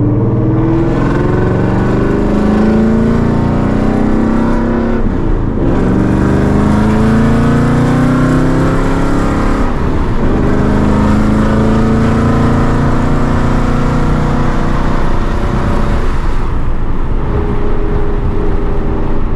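A 2021 Mustang GT's 5.0 Coyote V8, fitted with catless long-tube headers and an H-pipe catback, pulling hard through the gears. The engine's pitch climbs, drops at upshifts about five and ten seconds in, then settles lower and steadier near the end as the driver eases off.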